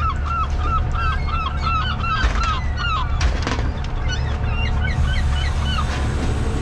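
A flock of gulls calling in a fast series of short, repeated cries, about four a second, thinning to scattered fainter calls after about three seconds, over the steady low drone of the boat's engine. Two brief knocks come about two and three seconds in.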